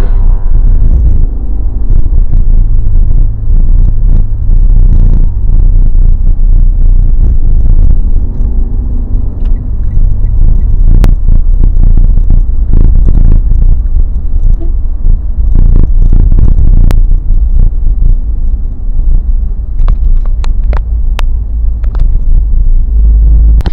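Car driving, heard from inside the cabin: a loud, steady low rumble of engine and road noise, with a few sharp clicks or knocks partway through and near the end.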